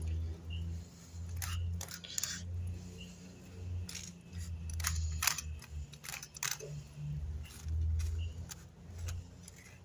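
Knife blade scraping along a tilapia's backbone and ribs and ticking on a plastic cutting board as a fillet is cut free, in many short scratchy strokes over a low hum.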